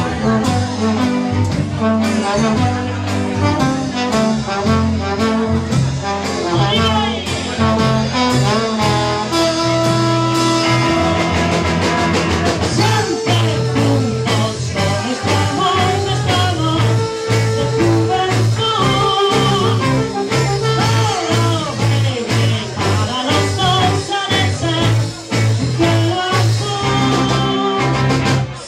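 Live band playing, with trombone, electric guitar and drums.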